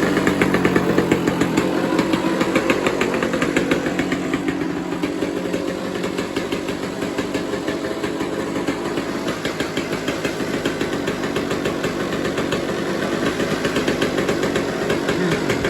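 1990 Yamaha YZ250's single-cylinder two-stroke engine running just after being started, with a rapid, steady firing rattle that eases a little in the middle and picks up again near the end. The owner thinks it is running a little rich.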